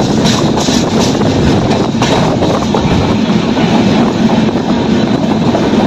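Express passenger train running at speed through a station, heard from a coach doorway: a steady loud rumble and rattle of the wheels on the track, with a few faint clicks near the start.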